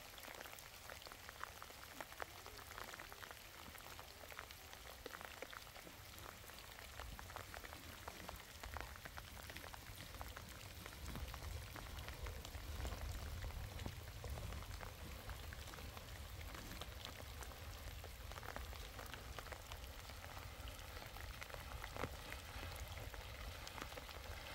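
Steady light rain falling on a road and ground: a soft hiss full of small drop ticks. A low rumble underneath grows stronger about seven seconds in.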